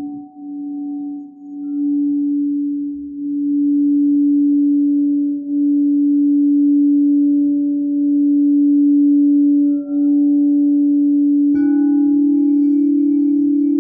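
Frosted crystal singing bowl played around the rim with a mallet: one steady, deep, pure hum that swells and keeps sounding with slight wavers. Near the end a second crystal bowl is struck, adding a slightly higher ringing tone over the first.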